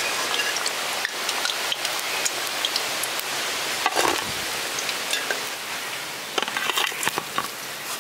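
Oil sizzling steadily as deep-fried egg chops are lifted out, with a few sharp clinks and scrapes of a utensil against the pan near the middle and again near the end.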